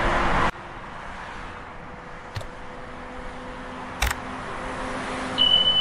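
Intro sound effects: traffic noise that cuts off suddenly about half a second in, then a faint hiss with two short clicks, the sharper one about four seconds in as a mouse clicks an animated subscribe button. A steady high beep sounds near the end.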